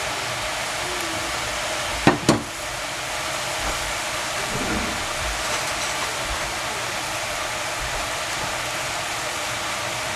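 Shredded cabbage sizzling in a stainless saucepan over a high gas flame, a steady hiss, with two sharp knocks close together about two seconds in.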